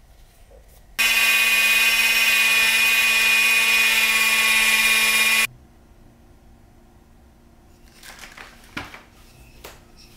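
A loud, steady machine-like buzz starts abruptly about a second in and cuts off as abruptly some four and a half seconds later. A few light knocks follow near the end.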